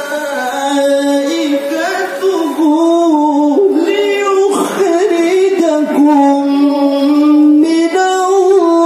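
A male qari reciting the Qur'an in melodic tilawah style, holding long ornamented notes that waver and slide, with a swooping glide in pitch about halfway through.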